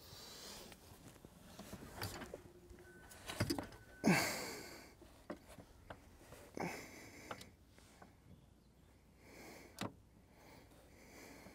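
Heavy breathing in puffs every few seconds from someone straining with effort on a stubborn part, the loudest a grunt that falls in pitch about four seconds in. A few sharp metallic clicks from the tool and parts come between the breaths.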